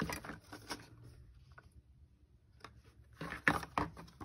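Plastic-and-card blister packs of washi tape being handled and shuffled on a table: quick clicks and crinkles of the plastic, in two short clusters near the start and about three seconds in.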